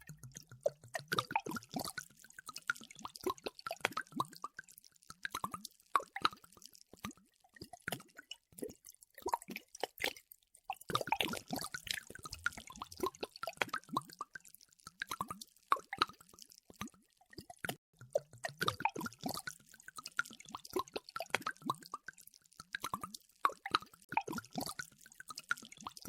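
Water spilling out of a glass bottle, splashing and plopping in several runs with brief pauses between them.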